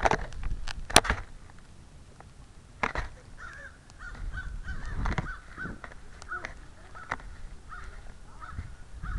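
A bird calling over and over, short calls about twice a second, from a few seconds in. Before that, sharp knocks and clicks of the camera being handled, the loudest about a second in.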